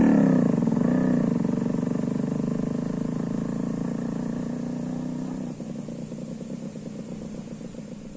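An engine running at a steady pitch, growing gradually fainter.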